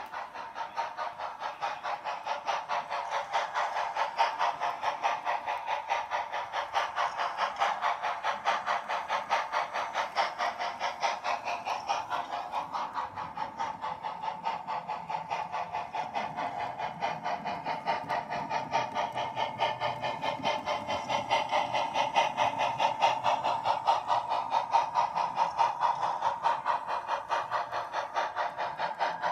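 Model train running along its track: the wheels click rhythmically over the rail joints, about three clicks a second, over a steady running whine.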